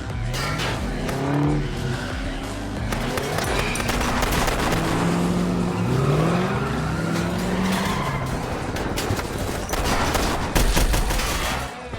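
Film soundtrack of a car chase: car engines revving up and down and tires squealing, over dramatic music, with a sharp hit near the end.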